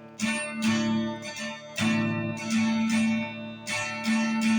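Acoustic guitar strummed in a steady rhythm, about two strums a second, with the chords ringing between strokes.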